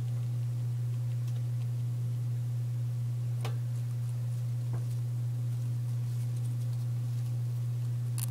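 A steady low hum, with a few faint clicks about halfway through and near the end.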